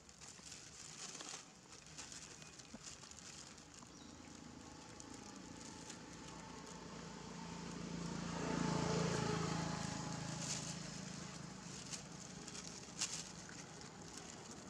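Outdoor background sound with an engine passing by, swelling to its loudest about two-thirds of the way in and then fading, with a few light clicks and rustles.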